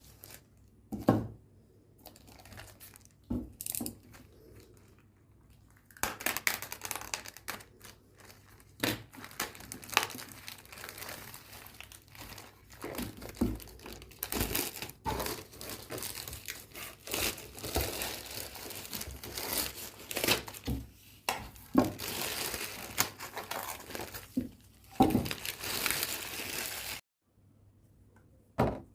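Packaging being handled and opened: a few knocks and taps, then continuous crinkling and tearing from about six seconds in. It stops abruptly near the end.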